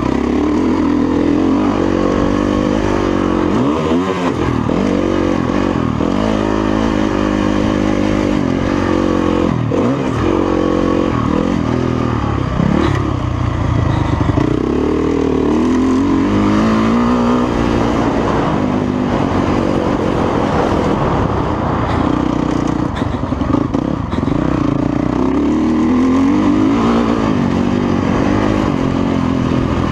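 Motocross dirt bike engine heard from on board, its pitch rising and falling over and over as the rider works the throttle and shifts gears around the track.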